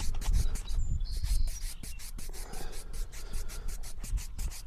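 Rapid, even scraping strokes, about seven a second, of sawdust being brushed off the face of a freshly sawn oak slab.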